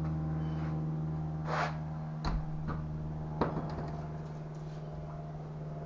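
Three light knocks and clicks from handling a Poulan Pro chainsaw, over a steady low hum.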